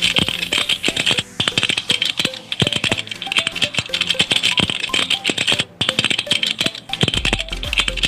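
Rapid, dense clicking of a keyboard-typing sound effect over background music with short melodic notes.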